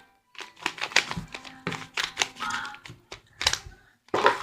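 Mirror cube (3x3 puzzle cube) being turned by hand: a run of irregular plastic clicks and clacks as its layers are rotated, with short pauses between turns.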